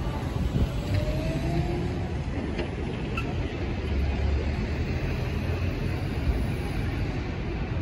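A bus passing close by with a low engine rumble and a faint rising whine in the first couple of seconds, then steady city street traffic noise.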